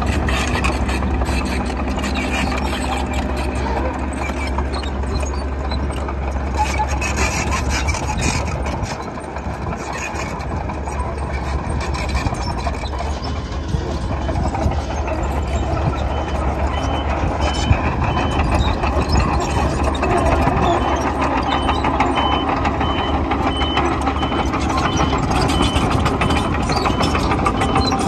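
Diesel engine of a tracked earthmover running steadily while leveling soil. About halfway through, a reversing alarm starts beeping in an even series of short high beeps.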